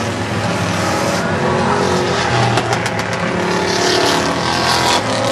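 Several V-8 stock cars racing on a short oval track, their engines running loud and overlapping into a continuous din.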